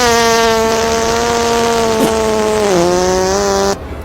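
A long, drawn-out buzzing fart sound effect held on one pitch. It drops a little lower near the end, then cuts off suddenly.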